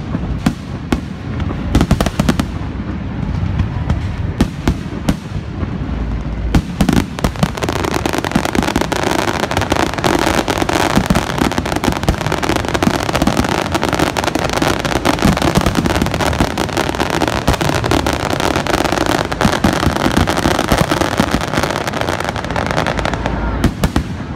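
Aerial firework shells bursting overhead: separate bangs for the first few seconds, then from about six seconds in a dense, continuous barrage of rapid crackling reports and booms, thinning again to a few single bangs near the end.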